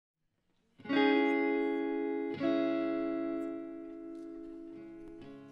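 Clean electric guitar: a chord strummed about a second in and left to ring, then a second chord at about two and a half seconds that rings on and slowly fades.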